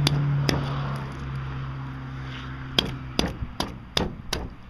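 Meat cleaver chopping through the rib bones of a buffalo fish on a wooden board: two sharp chops near the start, then a quicker run of about five chops in the last two seconds, breaking the ribs up toward the head.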